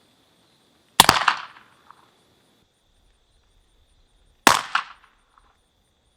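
Suppressed Marlin 1894 lever-action carbine firing subsonic 200-grain .44 Special loads: two shots about three and a half seconds apart, each a sharp report with a short tail.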